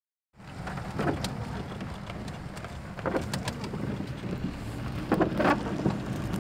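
Inside a car driving in heavy rain: steady low rumble of the engine and wet tyres with rain on the body. The windshield wipers sweep with a short swish about every two seconds.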